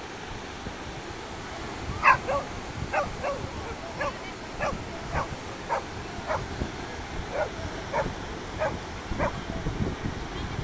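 A dog barking over and over, one bark a little more than every half second, starting about two seconds in, over a steady rush of surf and wind.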